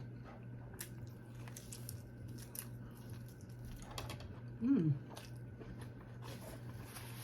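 Close-miked chewing of a mouthful of food, with scattered soft wet mouth clicks, and a short hummed 'mmm' about five seconds in, over a low steady hum.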